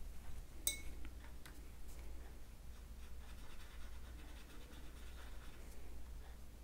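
Watercolour paintbrush stroking across watercolour paper and working in a pan palette: faint, soft scratchy brush strokes. There is one sharp, ringing click just under a second in, and a low steady hum underneath.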